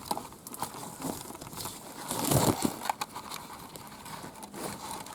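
Privet hedge leaves and twigs rustling and crackling as a camera is pushed in and over the hedge, with a louder rustle about two and a half seconds in.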